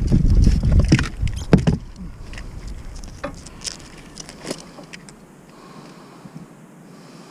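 Low rumbling knocks and handling noise on the boat for about the first two seconds, then scattered light clicks and taps, as a stubborn hook is worked out of a small blue catfish's mouth.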